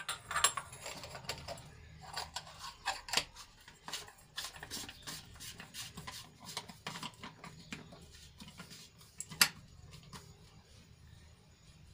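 Brass sev press being closed and handled, giving scattered metal clicks and taps as its screw handle is turned, with one louder knock about nine and a half seconds in.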